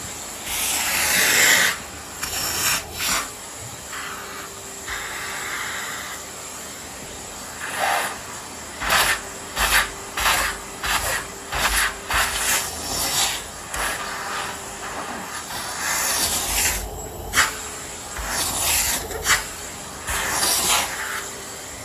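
Miele vacuum cleaner running with a steady hiss and faint hum while its nozzle is swept back and forth over the floor, each stroke a short swish, coming quickly one after another through the second half.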